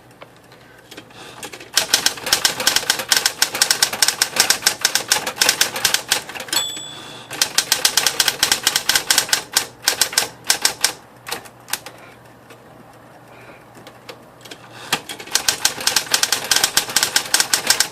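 Smith Corona Corona Electric portable electric typewriter being typed on, its motor humming steadily under fast runs of key strikes. A short bell-like ring sounds about six and a half seconds in, and around twelve seconds in the typing stops for a few seconds, leaving only the motor hum, before resuming.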